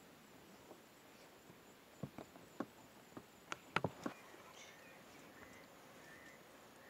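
Quiet open-bush ambience: a handful of faint sharp clicks about two to four seconds in, then faint, short high chirps.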